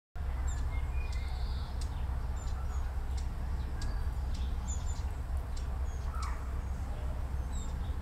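Many short, high bird chirps and calls scattered through, over a steady low rumble.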